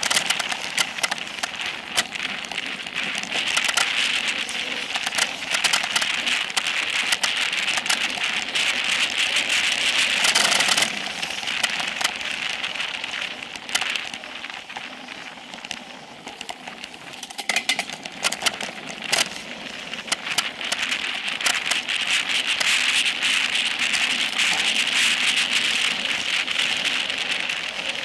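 Specialized Epic Pro mountain bike running fast down a dirt singletrack: the knobby tyres make a steady rough noise on dirt and gravel, with frequent sharp clicks and rattles from the bike. It drops quieter for a few seconds in the middle as the bike slows.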